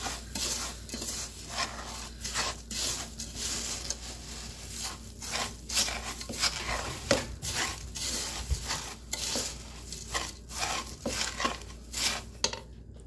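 Spoon stirring crisp rice cereal and crushed graham crackers in a large metal pot: a run of irregular scraping, crunching strokes against the pot.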